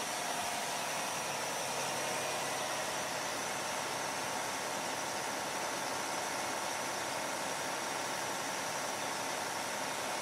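Heavy engines running steadily with an even hiss, the sound of idling fire apparatus and machinery.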